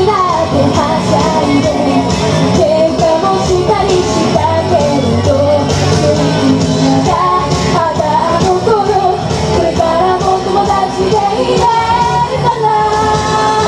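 Young female vocalists singing a pop song into handheld microphones over loud pop backing music.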